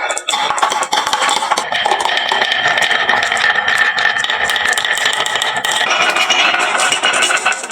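Many marbles rolling and clattering down a wooden marble-run slope: a dense, rapid clicking, with a steadier ringing whir through the middle seconds.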